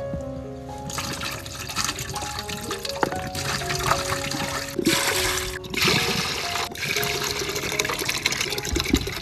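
Coconut water pouring out of opened young coconuts and splashing into a large aluminium pot that already holds liquid, in several pours with brief breaks between them. Background music with held notes plays along.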